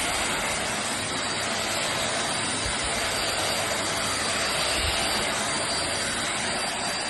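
Midea MVC-SC861 cordless stick vacuum cleaner running steadily: a constant rush of suction airflow with a thin high motor whine.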